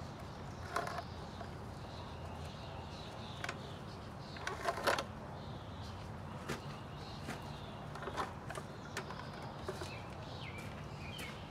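Scattered metal clinks and knocks, a few seconds apart, from hand tools and parts being handled on a removed car engine, over a steady low hum; the loudest cluster comes about five seconds in.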